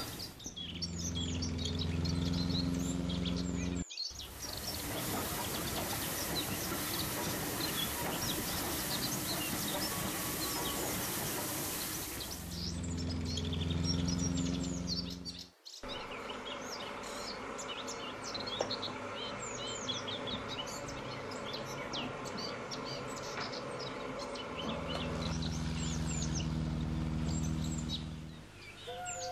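Small birds chirping and twittering throughout. A steady loud hiss of steam runs from about 4 to 12 seconds. A low hum comes and goes three times, and the sound drops out abruptly twice, about 4 and 16 seconds in.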